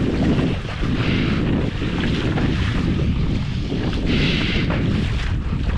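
Wind buffeting the microphone in a steady, heavy rumble, with a brief hiss about four seconds in.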